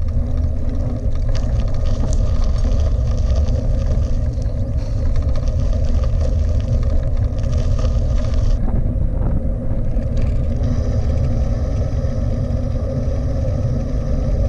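Wind buffeting and road rumble picked up by a handlebar-mounted GoPro Hero 5 on a moving bicycle: a loud, steady low rumble with a hiss above it. The hiss shifts for a moment about nine seconds in.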